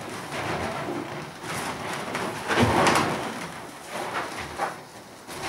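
Inflated latex balloons rubbing and squeaking against one another as hands press on the balloon sculpture and bend its wire frame, in irregular bursts, the loudest about halfway through.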